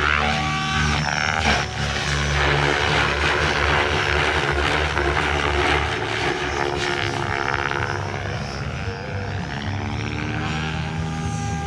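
Tron 7.0 electric RC helicopter flying 3D aerobatics: the rotor blades chop steadily while the motor and drivetrain whine glides up and down in pitch as the helicopter swoops through its manoeuvres.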